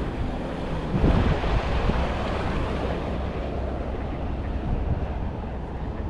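Wind buffeting the camera microphone: a steady rushing rumble with a stronger gust about a second in.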